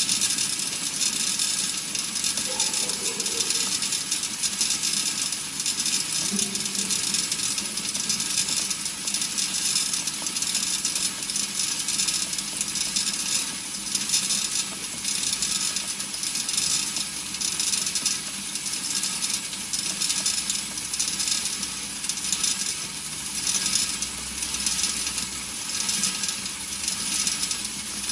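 Rotary spin feeder running, with a dense, continuous metallic clicking and rattling of steel pins circulating in the stainless bowl and feeding out along the track.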